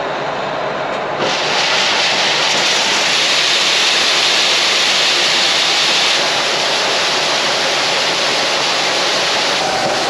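Shelled corn pouring from a grain cart's unloading auger spout into a metal truck box: a steady rushing hiss that starts about a second in as the grain begins to flow. The cart is being emptied into the truck.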